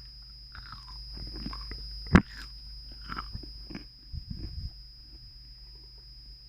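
People biting and chewing fast food close to the microphone, with soft crunches and mouth sounds and one sharp click about two seconds in.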